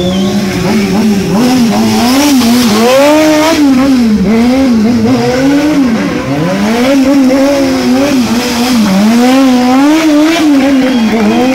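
A sport motorcycle engine revving hard and falling back again and again, rising and dropping about once a second, as the bike is spun in tight circles on asphalt, with its rear tyre scrubbing against the road.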